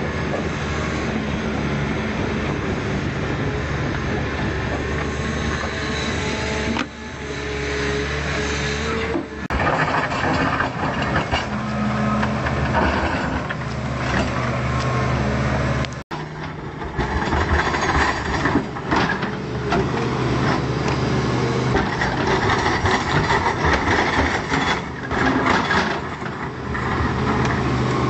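Volvo EC210C excavator's diesel engine running under load as it works its hydraulics, its pitch and level rising and falling with the work. The sound cuts out suddenly for a moment about two-thirds of the way through, then runs on.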